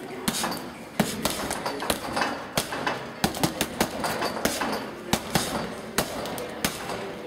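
Boxing gloves punching a double-end bag: a string of sharp, irregular smacks, about two a second.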